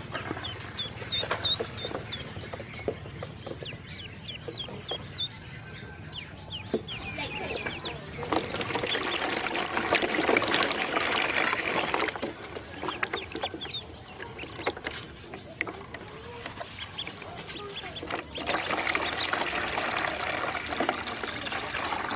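Water poured into a plastic tub, splashing in loudly for several seconds about eight seconds in and again near the end, with ducklings peeping in short, high chirps.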